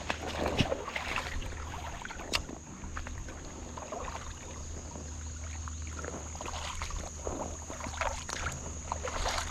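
Creek water sloshing and splashing, with scattered knocks and clicks, over a steady low rumble.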